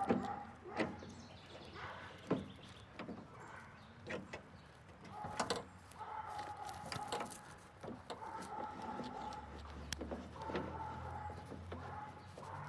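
Vent window on a 1964 Chevrolet Impala being cranked closed by hand, the mechanism squeaking in several drawn-out strokes about a second long each, with scattered clicks and knocks before the squeaking starts.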